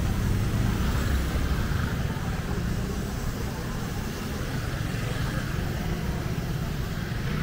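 Street ambience: a steady rumble of road traffic with faint voices of passers-by.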